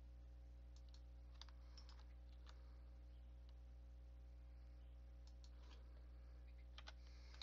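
Near silence with a steady low hum, broken by scattered faint clicks of a computer mouse and keyboard.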